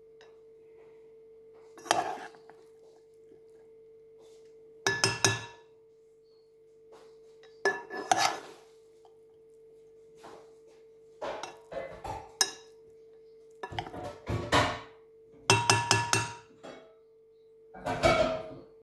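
A spatula scraping and knocking against a nonstick pan while quinoa and vegetables are stirred. The strokes come in about seven short clattering bursts a couple of seconds apart, some with a brief metallic ring. A faint steady hum runs underneath.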